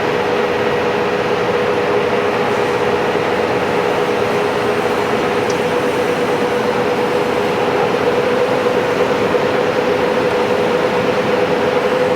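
DIP-300 heavy engine lathe running steadily while machining a fan part's seating surfaces: an even mechanical noise with a constant mid-pitched hum.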